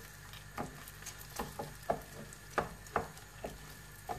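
Wooden spoon stirring rice as it toasts in butter and oil in a stainless steel pan, knocking and scraping against the pan about eight times at an uneven pace.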